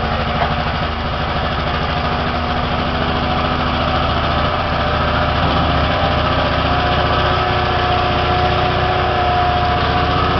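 An engine idling steadily, with a faint whine that grows a little stronger in the second half.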